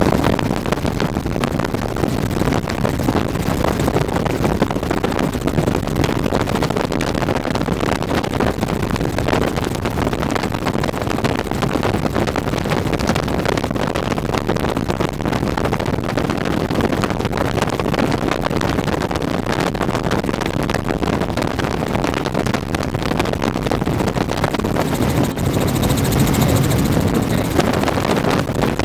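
Helicopter in flight: steady rotor and engine noise with a fast, even pulsing. Near the end there is a rise in hiss for a few seconds.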